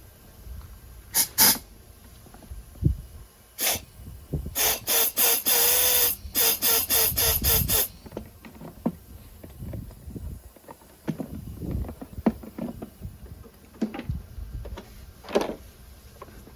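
Compressed-air blowgun firing short blasts of air to blow residual water out of the mower's fuel system. There are a few single blasts, then a rapid string of about a dozen around the middle, followed by light handling clicks and knocks.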